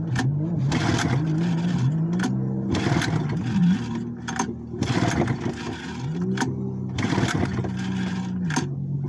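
Old two-cylinder outboard motor being pull-started by its recoil cord, turning over with a short rising whir on each pull but not catching. It will not run, which the owner puts down to fuel not getting through to the cylinders.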